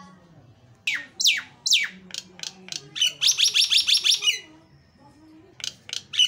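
Nias hill myna calling: several loud, sharp downward-sweeping whistles about a second in, then a rapid run of about nine repeated notes around three seconds in, and a couple of short notes near the end.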